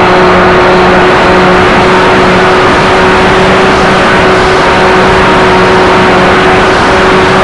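Onboard sound of an RC model Partenavia plane in flight: the motor and propeller drone at a steady, unchanging pitch under a heavy rush of wind on the microphone.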